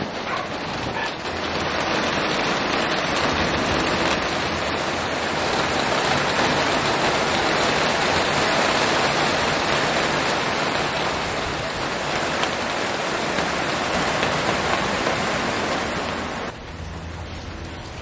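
Steady rain falling, an even dense hiss of drops on the deck and garden plants; it turns suddenly quieter near the end.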